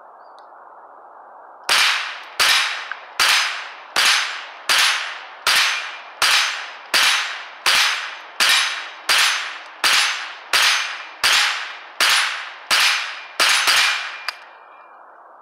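Glenfield (Marlin) Model 60 semi-automatic .22 LR rifle firing a long string of about eighteen shots, roughly one every three-quarters of a second, the last two fired closer together, then a light click.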